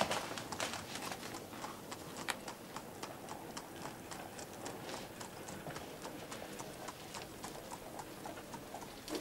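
A horse's hooves clip-clopping on a street, a few hoof strikes a second, growing fainter over the first few seconds.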